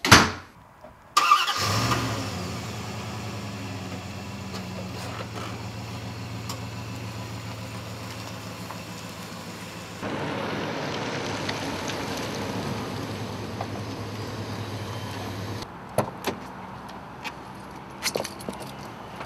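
A door bangs shut, then about a second later a vehicle engine starts and runs steadily. Around ten seconds in, the engine sound gives way to a vehicle driving with a hiss of tyre noise, which cuts off suddenly and is followed by a few knocks.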